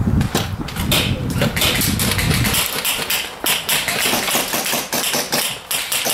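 Airsoft gunfire: many sharp, irregular clicks and snaps, several a second. A low rumble sits under the first two and a half seconds.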